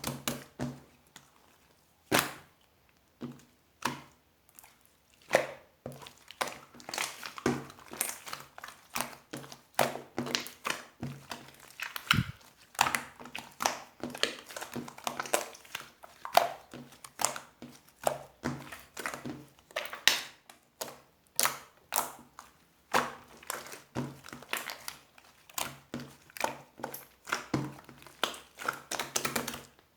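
White runny slime being squeezed and pressed by hand, giving irregular wet clicks and pops, sometimes in quick runs, with short pauses between.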